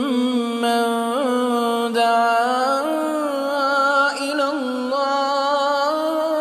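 Background music: a slow, wordless melody of long held notes with small ornamental turns, stepping up in pitch about two and a half seconds in.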